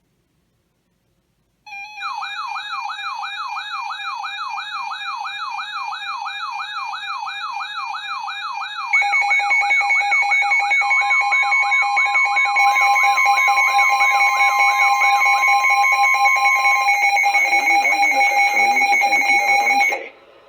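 Electronic emergency-alert tones: a fast siren-like warble, about four sweeps a second, over steady alarm tones. About seven seconds in, louder steady alert tones join it, and a brief higher steady tone is layered on for a few seconds. All the tones stop abruptly together.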